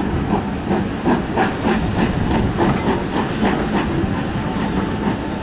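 Exhaust of BR Standard Class 4 2-6-4 tank locomotive 80002, heard from a carriage window as the train moves: regular steam chuffs at about three a second over a steady hiss.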